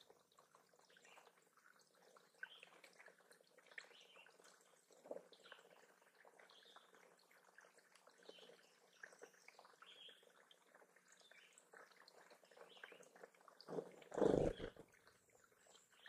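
A small waterfall trickling and dripping over stones into a shallow pond, with small birds chirping faintly throughout. About fourteen seconds in comes one brief, loud burst of sound.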